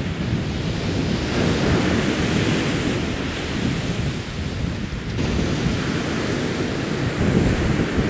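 Wind buffeting the camcorder's microphone: a loud, gusty rumble over a steady hiss, easing briefly just over four seconds in.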